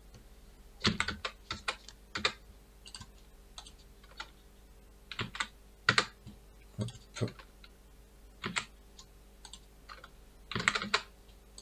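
Computer keyboard keys tapped in short runs with pauses between, as numbers are typed into form fields.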